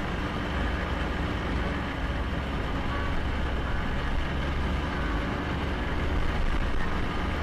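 Snowmobile engine running steadily under way, heard from on board, with a strong low rumble.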